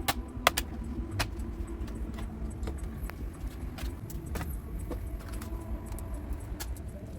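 Scattered sharp clicks and light clatter of tools and plastic parts while a Lenovo ThinkPad E14 laptop's bottom cover is opened, over a steady low rumble.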